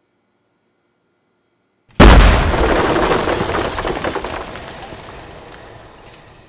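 Explosion about two seconds in, after silence: a sudden, very loud blast with a heavy low rumble that dies away over about four seconds, crackling as it fades.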